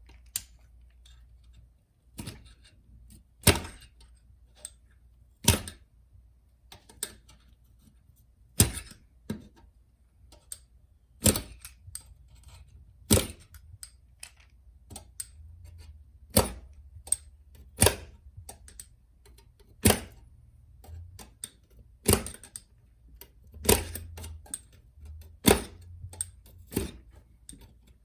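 Sharp metallic clicks as a small tool pries the keyboard rivets out of a MacBook Pro's aluminium top case. A loud click comes about every two seconds, with fainter ticks and scrapes between.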